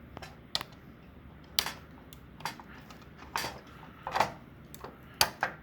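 Scattered light clicks and taps of plastic parts being handled while a Uconnect 8.4-inch display unit is taken apart, about a dozen in all, with a sharper click about a second and a half in and another near the end.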